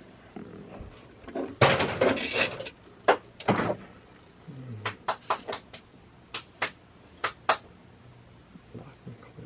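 Hard objects being handled: a short rustling clatter, then a string of separate sharp clicks and knocks.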